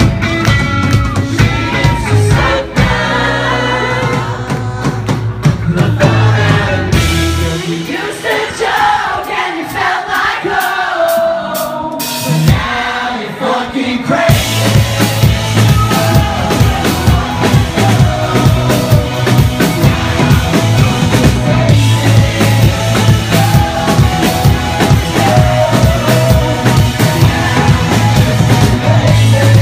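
Indie rock band playing live: electric guitars, drum kit and singing. About seven seconds in the bass and low end drop out for a sparse breakdown, and the full band comes back in around fourteen seconds in.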